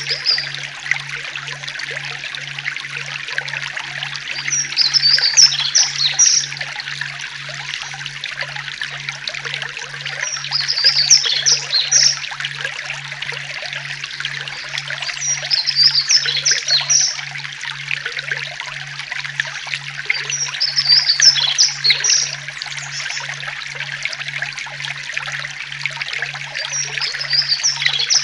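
Forest ambience: a stream trickling steadily, with a songbird's short, high, chirpy song phrase repeating about every five seconds. Beneath them runs a faint low tone that pulses about one and a half times a second.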